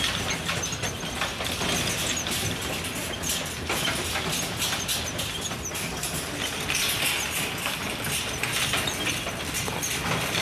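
Bundles of cut bulrushes rustling and crackling as they are handled and stacked, with a dense run of small clicks.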